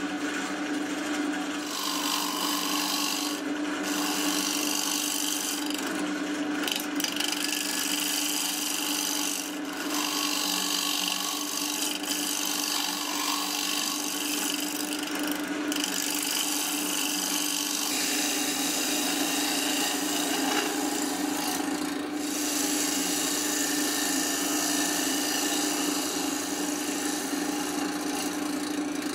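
Wood lathe spinning an ash bowl blank while a hand-held turning tool cuts it: a steady hum from the spinning lathe under a continuous rasping hiss of shavings peeling off, the cut easing off briefly a few times as the tool is repositioned.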